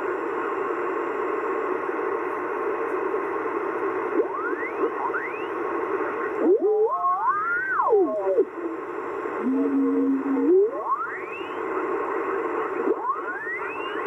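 Kenwood TS-570D HF transceiver's speaker giving steady static hiss as the tuning dial is turned up through the 40-metre band in lower sideband. Several whistles sweep up in pitch as the dial passes signals, and a wavering tone runs for about two seconds midway.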